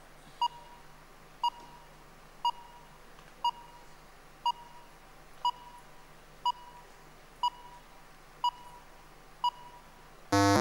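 Quiz-show countdown timer beeping: a short, high beep once a second, ten in all, then a longer, louder buzzer near the end that signals time is up.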